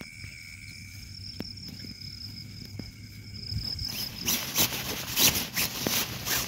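Insects trill steadily in the night background as two constant high tones. About four seconds in, nylon tent fabric starts rustling and crinkling loudly in repeated bursts as it is handled and spread out.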